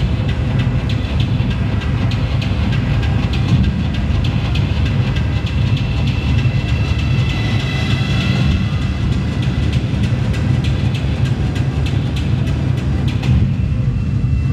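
Loud dance music over a club sound system, with a heavy, steady bass and a run of sharp high ticks that stops near the end while held high tones carry on.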